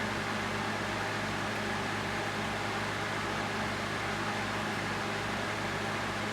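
Steady machine hum and hiss, like a fan running, with a low, even hum beneath it.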